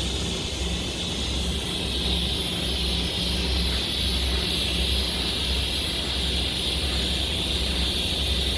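TIG welding arc burning steadily: a constant hiss with a low electrical hum under it.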